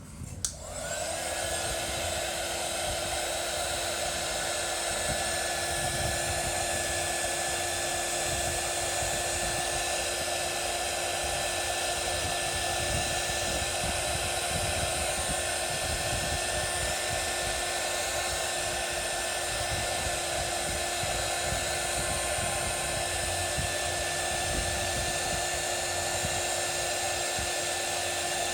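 Hot-air blower switched on about half a second in and running steadily with a high whine, used to heat the phone and soften the adhesive of a stuck battery that will not pry out.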